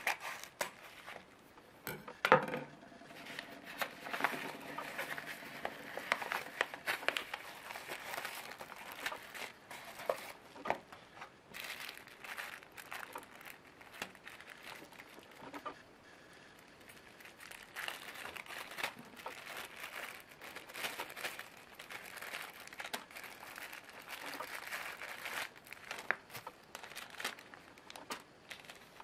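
Scissors cutting open a padded paper mailer, with a sharp snap about two seconds in, then small plastic bags of 5 mm LEDs crinkling and rustling as they are handled.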